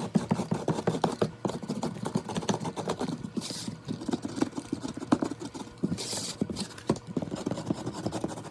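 Closed utility knife rubbed hard against the leftover gypsum on the paper lip of a drywall blowout patch, a fast irregular run of knocks and taps with two short scrapes, knocking the excess gypsum off.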